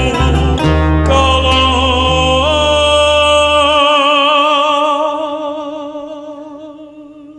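Male singer holding one long note with wide vibrato over an acoustic guitar ensemble. The bass and guitars drop out about four seconds in, and the voice carries on alone, fading away near the end.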